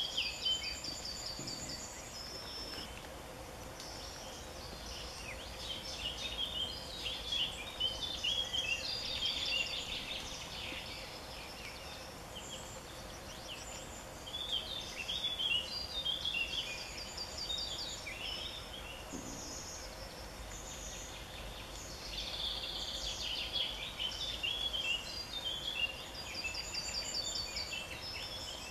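Several songbirds singing, overlapping phrases of high chirps and rapid trills that come and go, over a faint steady hum.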